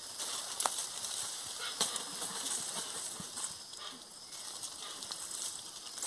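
Forest ambience: a steady high hiss with a few short sharp snaps, about two of them standing out in the first two seconds.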